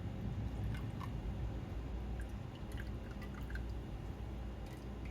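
Scattered faint drips and small clicks of liquid and containers being handled, over a steady low hum.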